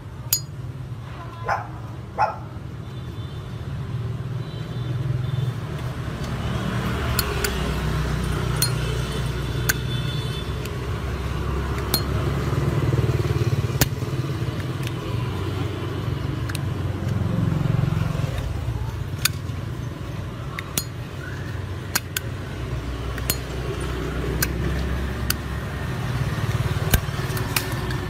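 Scattered sharp metallic clicks and clinks of a polished chrome Zippo lighter being handled, its lid closing and hinge clicking. Under them runs a steady rumble of road traffic.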